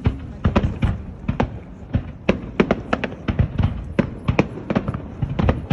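Fireworks display: an irregular run of sharp bangs from bursting aerial shells, several a second, over a low rumbling echo.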